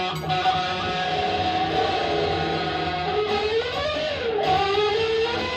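Live noise music: sustained droning instrumental notes over a steady low hum, with the pitch sweeping up and back down about four seconds in.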